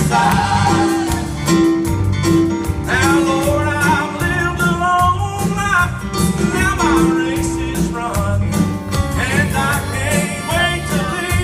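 Live band performing a song: a woman singing lead into a microphone, accompanied by acoustic guitar and keyboard.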